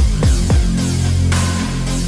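Electronic background music with deep kick drums, a few near the start, under a heavy sustained bass line, and a bright cymbal wash coming in past the middle.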